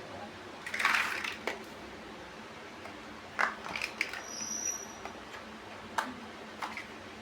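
Plastic LEGO bricks being handled and pressed together: a rustle about a second in, then scattered sharp clicks.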